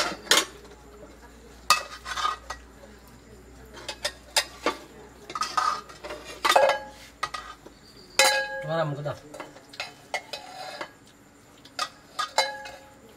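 Metal pot lids, a bowl and a spoon clanking and scraping as a toddler handles them, a dozen or so separate clanks, a couple of them ringing on briefly, about eight seconds in and near the end.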